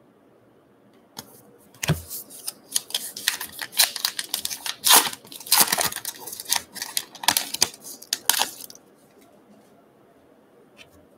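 A baseball card pack's wrapper being torn open by hand, crinkling and crackling in quick irregular bursts for about seven seconds.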